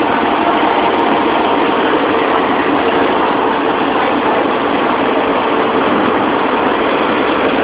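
City transit bus engine running close by, a steady drone with street traffic noise around it.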